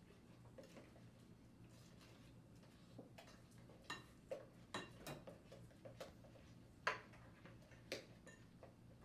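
Spoon stirring a thick creamy mixture in a glass mixing bowl: faint for the first few seconds, then light clicks and knocks of the spoon against the glass from about three seconds in, the loudest a little before the end.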